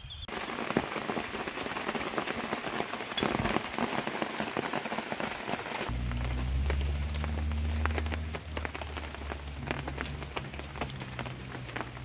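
Rain pattering on a tent's tarp: a dense hiss of many small drop ticks. About halfway through a low steady hum joins it, fading shortly before the end.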